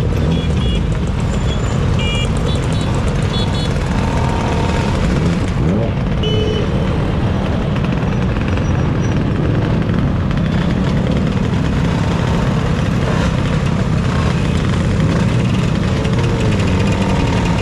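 Many motor scooters and a few motorcycles riding slowly past in a continuous procession, their engines running together in a steady, loud mass of engine noise.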